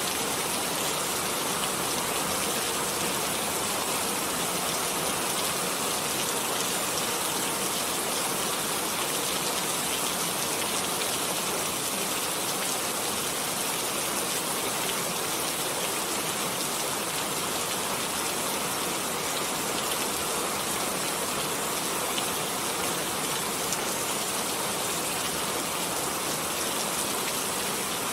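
Steady rain falling, an even hiss that holds level without breaks.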